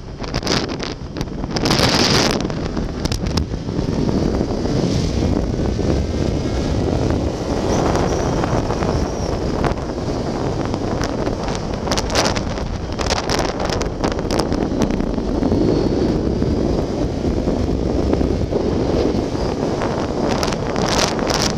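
Wind rushing over the microphone of a camera on a riding motorcycle, a Yamaha XJ6 Diversion, with the bike's engine and road noise running underneath. Louder gusts of buffeting come now and then.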